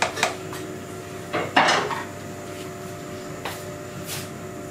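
A cup tapped against the rim of an aluminium cooking pot as maize flour is shaken into it. About a second and a half in comes a louder clatter of kitchenware, followed by a few faint knocks.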